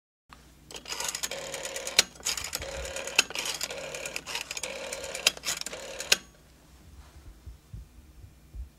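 Rotary dial of an antique-style candlestick telephone being dialed: several digits in a row, each a whirring spin-back with clicks, stopping about six seconds in.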